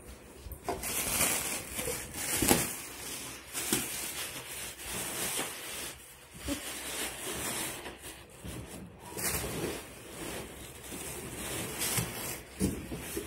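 Plastic air-pillow packing crinkling and cardboard flaps scraping as a large shipping carton is opened and unpacked by hand, in uneven spells with a few sharp knocks.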